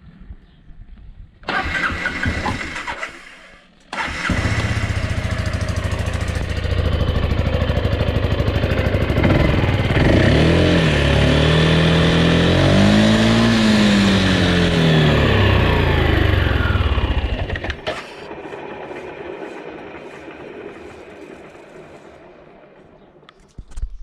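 Aprilia Scarabeo scooter engine: a short burst of starting, then the engine catches and runs, revved up and down twice before it shuts off. A fainter whir fades out afterwards.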